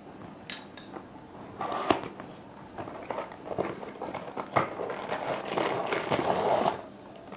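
A cardboard product box being handled and opened. Packaging rustles over scattered clicks and taps, and the rustling is busiest in the second half.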